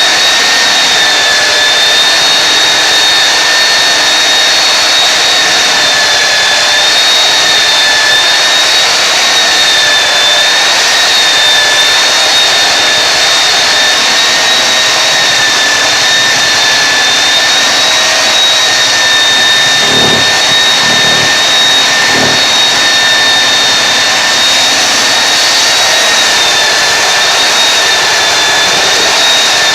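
Belt floor sander running steadily while sanding the floor, a loud high whine over a rushing noise. A few brief low knocks about twenty seconds in.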